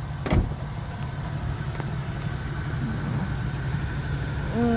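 Toyota FJ Cruiser's 4.0-litre V6 idling steadily as a low rumble, with one sharp thump about a third of a second in.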